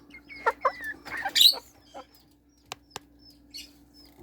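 Young Silkie chickens peeping in short, high, falling notes, with a brief flutter of wings about a second in.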